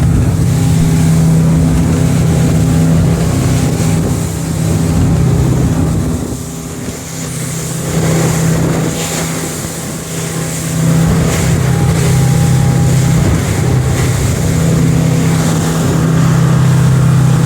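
Motorboat engine running at a steady drone while under way in choppy water, with wind buffeting the microphone and water rushing past the hull.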